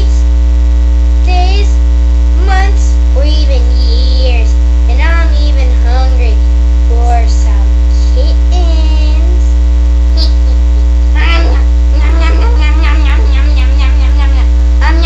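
Loud, steady electrical mains hum. A girl's high voice in short bursts of puppet talk rises and falls over it, more continuous in the last few seconds.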